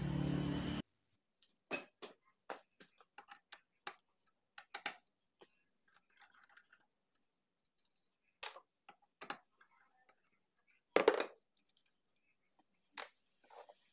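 Scattered light metallic clicks and taps of a T-handle wrench and fingers on the rocker-arm shaft retaining bolt of a Honda Vario 125 cylinder head, with a small cluster of clicks about eleven seconds in. A steady hum cuts off just under a second in.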